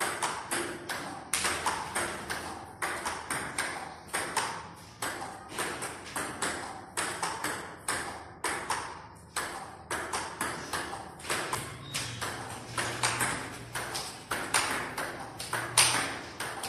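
Table tennis balls clicking off bats and bouncing on the table in a fast, even stream, about two to three clicks a second, as balls are fed one after another from a basket in a multiball drill.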